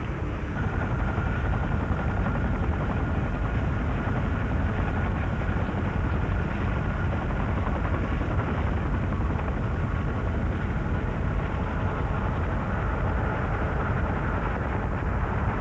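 CH-47 Chinook tandem-rotor helicopter flying close by: a steady, heavy rotor and engine noise with a thin, high turbine whine over it.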